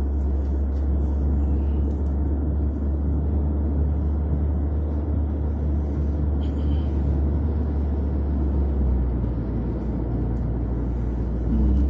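Steady low rumble of a car driving at highway speed, heard inside the cabin: engine and tyre road noise.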